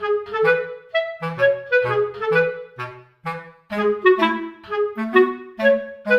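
Background music: a bouncy melody of short, separate notes, a few to the second, over a lower accompanying line.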